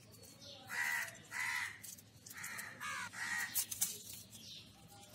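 A crow cawing four times in two quick pairs of harsh calls. Soft dry crackles follow as garlic skin is peeled by hand.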